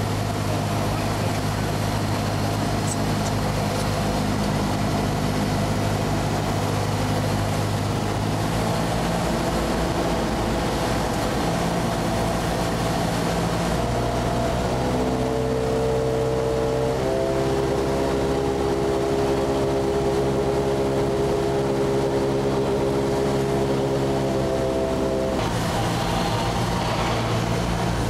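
A Cessna's piston engine and propeller droning, heard from inside the cabin, with the tone shifting several times as the power is changed on the landing approach.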